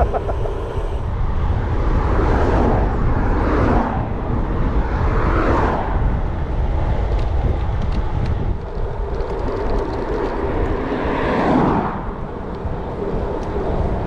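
Heavy wind rumble on a handlebar-mounted action camera's microphone as a bicycle rolls along a road at speed. Cars pass about three times, each swelling and then dropping in pitch as it goes by.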